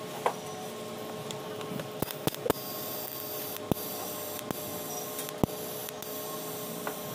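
TIG welding on stainless-steel square tube, filler rod fed by hand: a steady hum and hiss, with about half a dozen sharp clicks scattered through.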